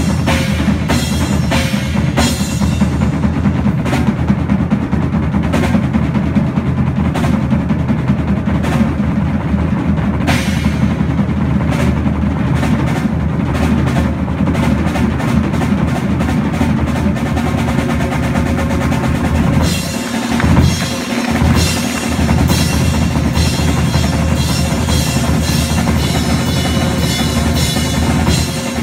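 Pearl acoustic drum kit played as a solo: fast, dense strokes on snare, toms and bass drum, punctuated by cymbal crashes. About two-thirds of the way in, the bass briefly drops away and the cymbals then ring almost constantly over the drumming.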